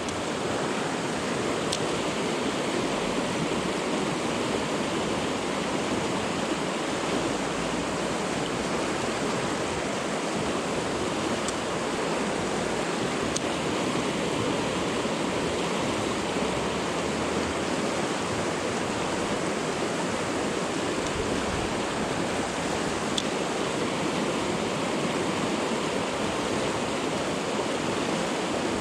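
Swollen river rushing steadily through a fast run, the water running high with snowmelt.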